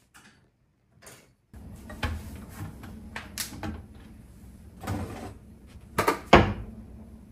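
Near silence for about a second and a half, then a steady low room hum with a handful of short knocks and clunks; the loudest come as two close together near the end, the second ringing briefly.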